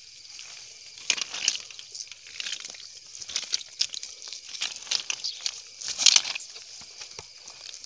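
Rustling and crackling of grass and weeds as a hand searches through them for golden apple snails, in irregular bursts, the loudest about six seconds in.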